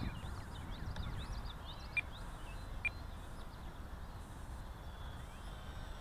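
Wind buffeting the microphone in a low, steady rumble. Small birds chirp in quick, short notes over the first few seconds, with two brief high peeps about two and three seconds in.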